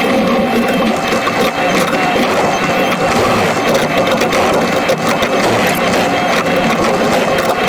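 Diesel engine of a working digger running steadily at work revs, a dense mechanical chatter with no pauses.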